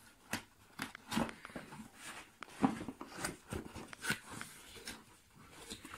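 Cardboard packaging being handled: irregular scrapes and knocks, a few each second, as a small inner cardboard box is worked out of the carton.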